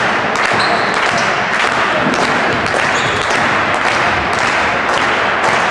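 Dense crowd noise in a sports hall during a floorball match: many voices at once, with scattered claps and short knocks.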